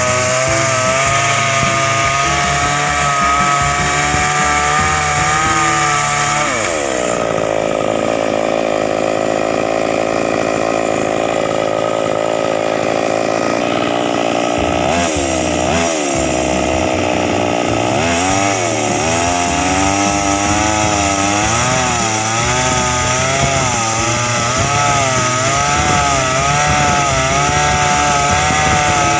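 Two-stroke chainsaw running at high revs while cutting through wood, its engine pitch wavering as the chain bites. It steadies for several seconds near the middle, dips briefly twice, then wavers under load again.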